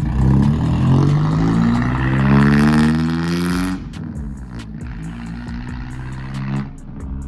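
A car engine accelerating, its note rising for a few seconds, then dropping suddenly as it shifts up and running at a steadier, lower pitch.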